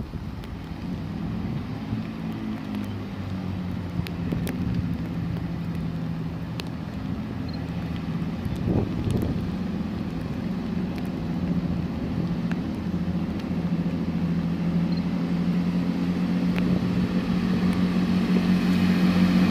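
A diesel High Speed Train approaching: the drone of its Class 43 power car engine holds a steady pitch and grows steadily louder.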